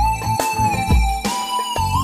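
Instrumental break in an Algerian raï song. A held, gliding lead melody plays over a drum beat with deep bass hits and a cymbal wash about once a second.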